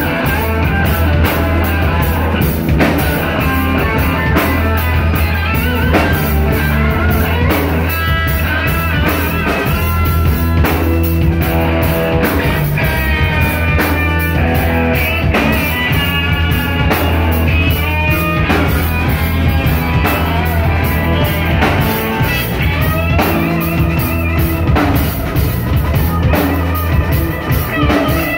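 Live rock band playing: electric guitar, bass guitar and drum kit, with cymbals keeping a steady beat.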